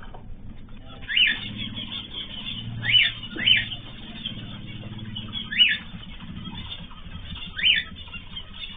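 Cage birds giving short, sharp chirping calls, about five in all, a second or two apart, over a low steady hum.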